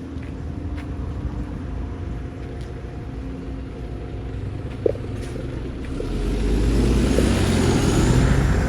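Road vehicle noise: a steady low rumble that swells into a louder rush about six seconds in, as from a car nearby or passing.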